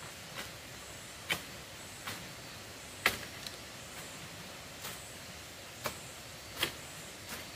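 A series of sharp knocks at an uneven pace, roughly one a second, the loudest about three seconds in, over a faint steady hiss.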